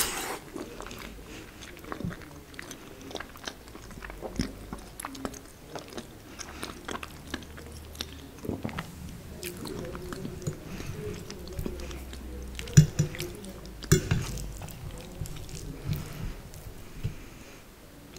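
Close-miked chewing and wet mouth sounds of eating soft lasagna, with small clicks and scrapes of a fork against the plate and two sharp knocks from the fork partway through.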